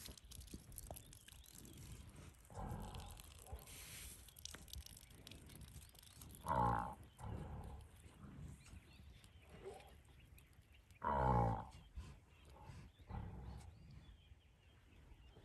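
White rhino cow in labour, her calf's amniotic sac emerging, giving short pitched calls as she strains. Two loud calls come about six and eleven seconds in, with several fainter ones between.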